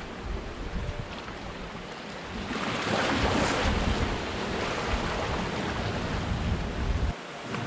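Sea waves surging into a rocky gully and breaking over the rocks as white water, getting louder about two and a half seconds in, with wind buffeting the microphone.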